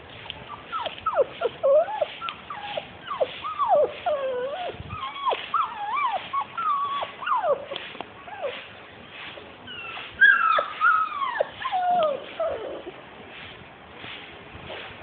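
Several six-week-old Labrador puppies whining and yelping as they play, a quick run of short high calls that slide up and down in pitch and die away near the end.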